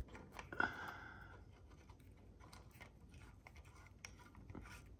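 Metal tool handling at an aluminium engine case: a socket on a long extension being set into the crankcase access hole. A brief ringing metal clink about half a second in, then faint scattered clicks.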